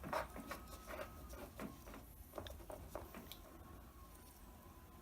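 Faint clicks and light taps of a garden hose coupling being handled and threaded onto a water heater's drain valve, scattered over the first three seconds.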